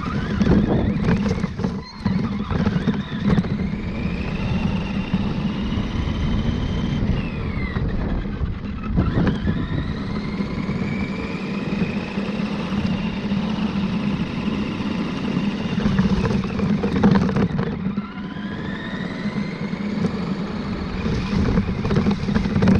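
RC truck's motor whining as it drives, rising in pitch three times as it speeds up and dropping once as it slows, over a steady rumble of tyres and drivetrain.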